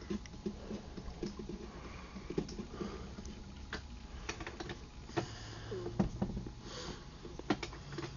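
Scattered light clicks and taps with faint rustling, the sound of small equipment being handled.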